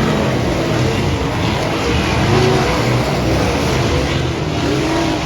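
Several dirt-track race cars running together, their engines revving up and falling off, with overlapping pitches that rise and fall throughout.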